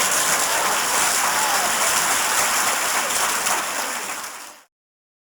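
A large crowd laughing, a dense wash of many voices, that tapers a little and then cuts off abruptly near the end.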